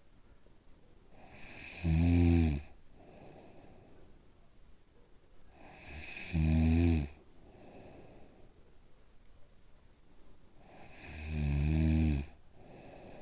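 A person snoring in sleep: three loud snores about five seconds apart, each swelling up and stopping sharply, with a softer breath between them.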